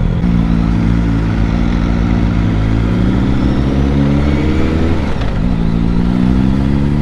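BMW motorcycle engine under acceleration on the road: its pitch climbs, drops briefly about five seconds in as the next gear goes in, then climbs again.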